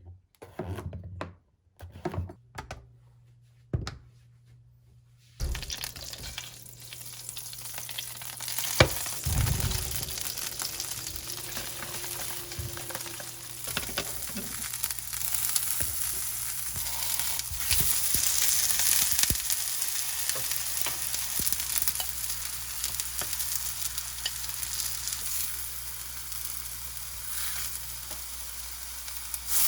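Food frying and sizzling in a pan, starting about five seconds in after a few scattered knocks and clicks, with a steady hiss and occasional sharp pops and the clatter of stirring.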